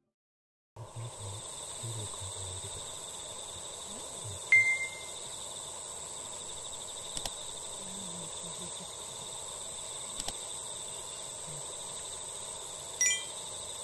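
Dusk outdoor ambience: a steady high-pitched insect chorus, with a short bird call about four and a half seconds in, another near the end, and a couple of faint clicks. It starts after a moment of silence.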